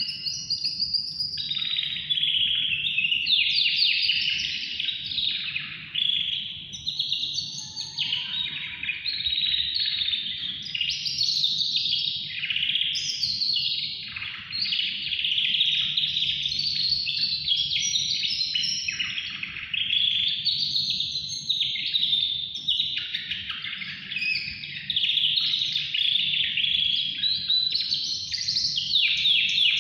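A caged yellow songbird singing without pause: long, high-pitched phrases of rapid trills and warbles, each running into the next with only brief breaks.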